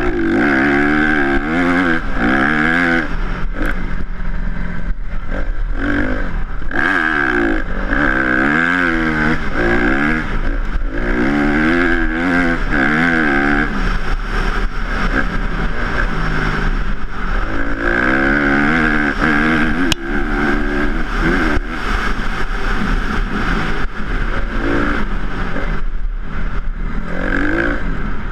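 Honda CRF250R dirt bike's single-cylinder four-stroke engine being ridden hard, its pitch rising and falling every second or two as the throttle is worked and gears are changed.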